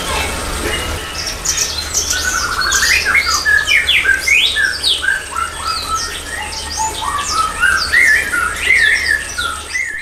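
Several small aviary birds chirping and calling together: a busy overlapping mix of short rising and falling calls and squawks. A low steady hum runs underneath.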